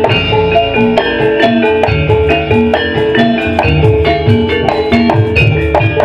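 Javanese gamelan music for a kuda lumping dance: hand drums and ringing tuned metal percussion play a quick, steady, repeating figure.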